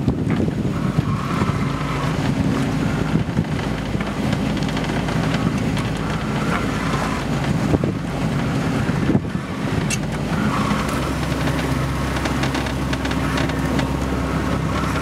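Boat engine running steadily underway, with wind buffeting the microphone and water rushing past the hull. A deeper engine hum comes up about two-thirds of the way through.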